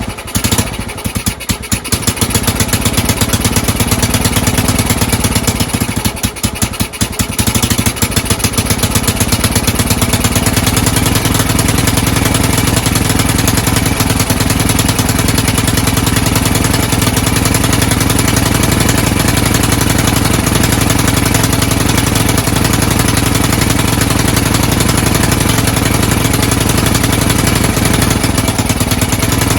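Honda TLR200's four-stroke single-cylinder engine running unevenly, dipping twice, about a second in and again around six seconds in. It runs loud and not very well, and the owner puts a lot of the excess noise down to the bent exhaust leaking at the head manifold.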